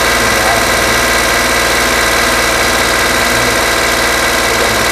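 2012 Honda Pilot's V6 engine idling steadily, heard close up from the engine bay, with a rustling, noisy running sound that the mechanic takes for a clogged catalytic converter, with the rear bank of cylinders 1, 2 and 3 misfiring.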